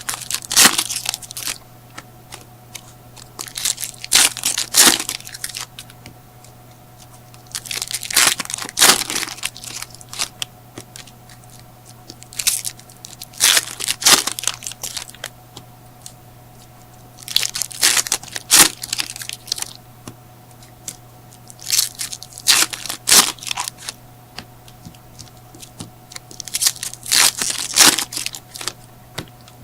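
Trading-card pack wrappers being torn open and crinkled, with cards handled, in bursts of a second or two every few seconds. A faint steady hum lies underneath.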